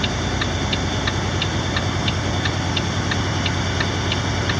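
Semi truck's diesel engine idling steadily, with a light, regular ticking about three times a second over it.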